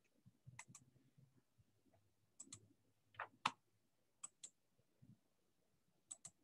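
Faint computer mouse clicks, about half a dozen, most in quick pairs, with two slightly louder clicks about three seconds in.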